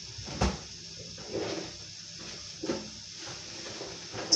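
Tap water running into a sink, a steady hiss, with a knock about half a second in, a few softer bumps, and a sharp click near the end.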